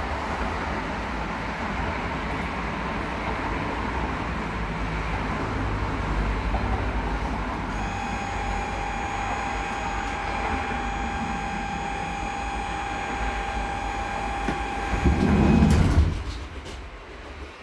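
Inside a HÉV suburban train carriage with open windows: a steady rolling rumble and rattle. From about eight seconds in a steady high whine with overtones joins it. Near the end the whine cuts off with a heavy low thump, and the noise drops away as the train comes to a stop.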